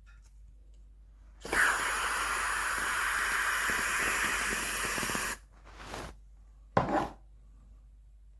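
Aerosol whipped-cream can spraying in one steady hiss lasting about four seconds, starting with a brief sputter, as cream is piped onto a mug cake.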